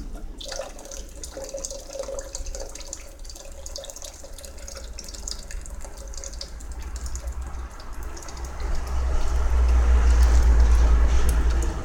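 Water pouring in a steady stream from an electric kettle's spout into a stainless-steel pot, splashing into the water already in it. The pour starts about half a second in and grows louder with a low rumble from about eight seconds in.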